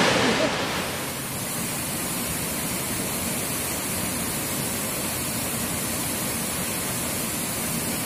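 Steady rushing of a waterfall, a dense, even hiss of falling water. Its level drops about a second in, then holds steady.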